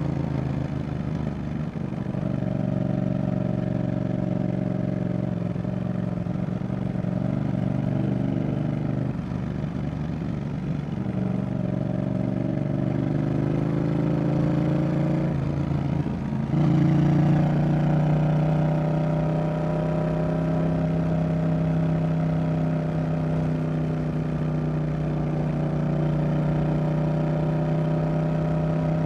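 Yamaha XSR700's CP2 parallel-twin engine, fitted with a Roadsitalia aftermarket exhaust, running on the move at a fairly steady engine speed. Its note breaks up briefly twice, about ten and sixteen seconds in, then holds steady.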